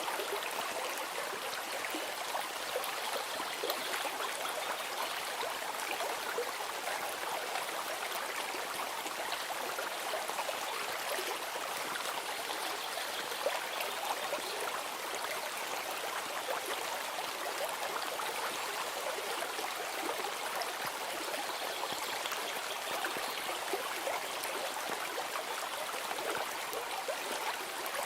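Flowing stream water, a steady even rush with small trickles and splashes throughout.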